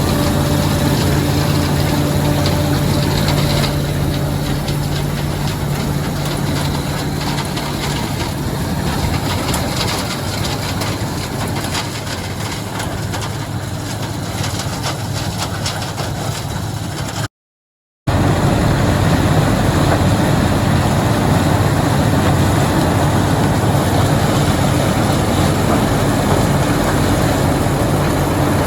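Heavy farm machinery engine running steadily, a low hum under dense mechanical noise. The sound drops out completely for under a second about two-thirds of the way through, then resumes much the same.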